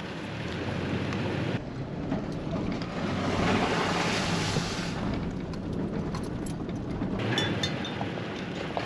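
Wind rushing over the microphone, a steady noise that changes abruptly a few times.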